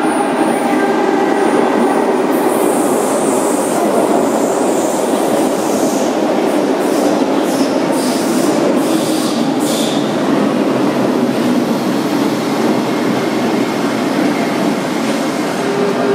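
Subway train pulling into an underground station and slowing: a loud, steady rumble of the cars running past the platform, with high hissing and short squeals over the first half.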